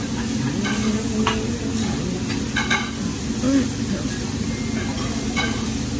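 Chicken breasts and shrimp sizzling steadily on a hot hibachi flat-top griddle. The chef's metal spatulas scrape and clack against the steel plate in short, scattered clicks, several close together about halfway through.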